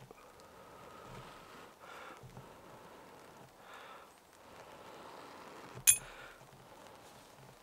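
Soft breathing and light handling sounds around a freshly caught char cloth ember, with one sharp, ringing clink about six seconds in, the loudest sound.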